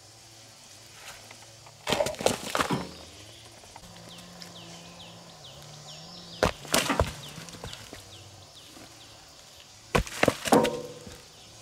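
Three short clusters of knocks and thuds about four seconds apart, each a quick run of several hard strikes, typical of building work with wood or stone.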